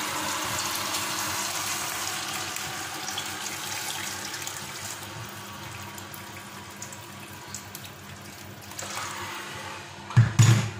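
Boiled water poured in a steady stream into a stainless steel pot of chicken bones, splashing and slowly getting quieter as the pot fills. Near the end, a couple of loud low thumps.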